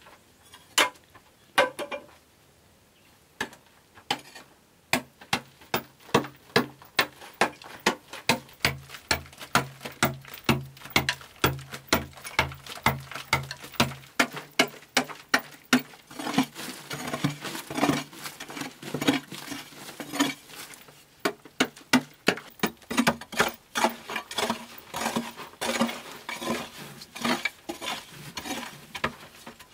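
Metal blade of a long-handled digging tool chopping into packed earth: a few scattered blows at first, then steady strikes about two a second. From about halfway the strikes come with scraping of loosened soil between them.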